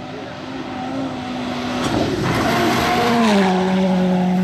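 Rally car engine running at high revs, growing louder as the car closes in on a gravel road, with a burst of tyre-on-gravel noise about two seconds in. About three seconds in the engine pitch drops and stays lower while the car is close.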